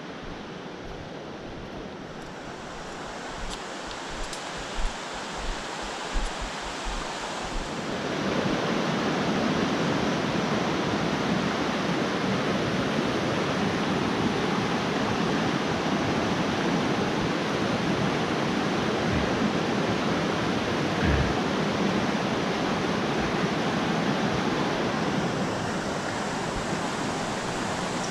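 Steady rushing of a fast-flowing river, louder from about eight seconds in, with a few low thumps in the first several seconds.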